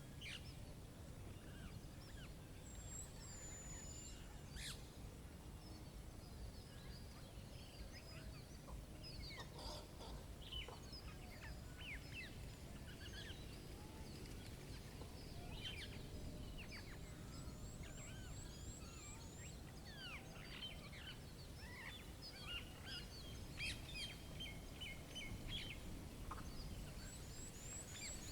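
Several wild birds chirping and singing, with many short calls and whistles overlapping, over a steady low background rumble.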